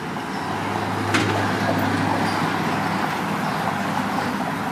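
U-Haul box truck's engine running with a steady low hum as the truck pulls up to the curb, with a brief sharp click about a second in.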